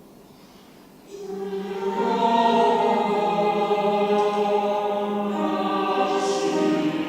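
Church choir singing sustained chords in several parts. It comes in about a second in, after a hushed pause.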